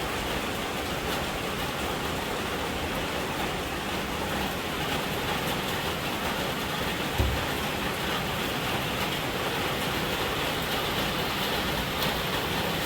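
Steady rain falling, with runoff starting to gush into a drain. A single brief low thump about seven seconds in.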